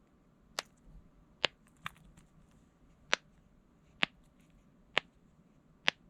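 Seven short, sharp clicks spaced irregularly about a second apart, from bubbles being pressed on small silicone pop-it fidget toys.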